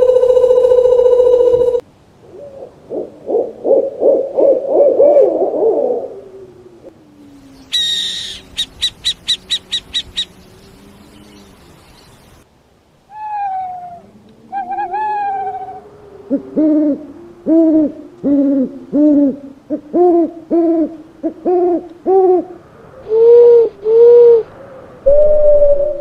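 A string of different owl calls. A steady held tone stops about two seconds in, followed by a wavering call and a brief rapid high rattle. Then come two falling calls and a run of short repeated hoots, ending with a long drawn-out note.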